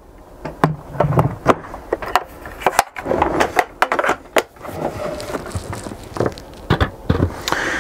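Hard plastic knocking and clattering as the Nilfisk Aero 26 shop vac's motor head is seated back onto its tub and handled, with a scraping stretch partway through. Near the end a plastic dust-collection bucket is picked up and handled.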